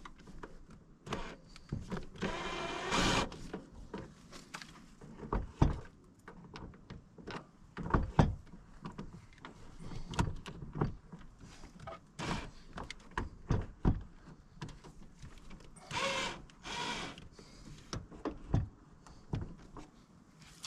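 A screwdriver working on the Phillips screws of a metal grab rail, giving scattered clicks and knocks. Two brief grinding stretches, about two seconds in and again about sixteen seconds in, come as the driver turns and slips in the screw heads.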